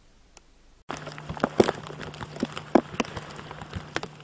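Near silence for almost a second, then an abrupt switch to irregular crackling and rustling with sharp clicks over a steady low hum.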